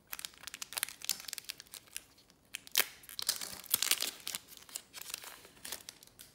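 Foil wrapper of a trading-card pack crinkling and tearing as it is ripped open: a rapid run of sharp crackles, loudest about three to four seconds in.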